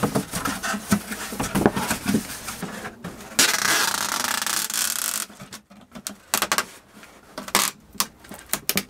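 A cardboard box being folded into shape, its flaps scraping and knocking. About three and a half seconds in, packing tape is pulled off the roll across the box in one long rip lasting nearly two seconds, followed by taps and rubbing as the tape is pressed down.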